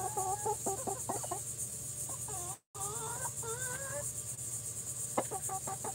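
Young hens clucking and giving short, wavering calls, some drawn out into warbling trills, over a steady high chorus of insects.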